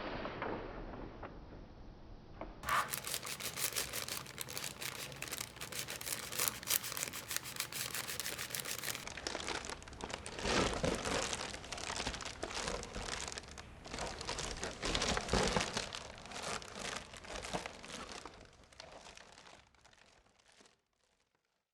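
Vinyl plastic being handled and worked, giving a dense run of fine crinkling crackles with uneven swells that fade out near the end. Before that, a steady hiss dies away in the first couple of seconds.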